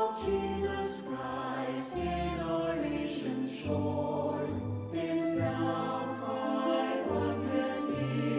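Choir singing over instrumental accompaniment, with held bass notes that change about once a second.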